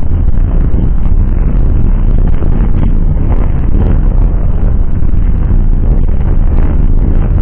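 Two CSX diesel locomotives rolling past at low speed, their engines running with a steady low drone, mixed with wind noise on the microphone.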